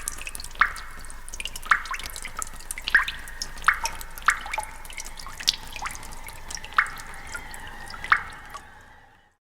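Sound effect of water dripping: single drops plink one after another at uneven intervals, roughly one a second, over a faint steady hiss. It fades out near the end.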